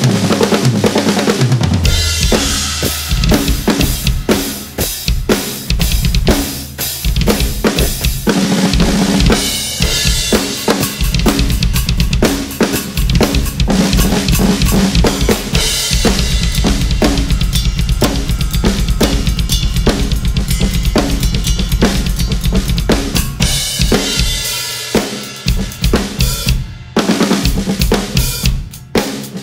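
Drum kit played hard in a groove that features a 5x14 ten-ply maple snare drum, with snare hits over bass drum and cymbals. In the middle, the bass drum plays a long run of very rapid strokes, and there is a short break near the end before the playing resumes.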